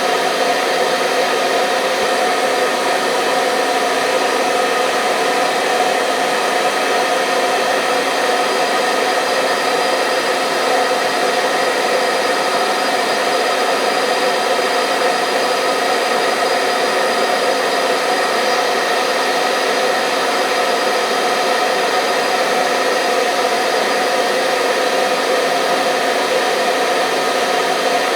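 Hair dryer running steadily: a continuous blowing whir with a fan-motor hum, unchanging throughout.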